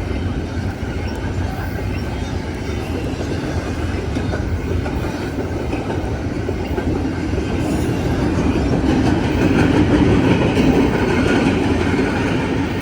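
Train rolling past on the tracks: a steady rumble of wheels on rail with some clickety-clack, growing louder to a peak about ten seconds in, then easing off.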